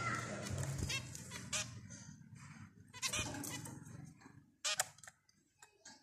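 Zebra finches calling: short beeping calls in small groups about every second and a half.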